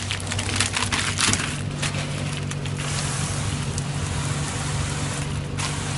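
Diesel-fired steam car washing machine running in its water mode: a steady low machine hum with a second pump tone joining about a second and a half in, and water hissing from the spray gun, thinning out near the end.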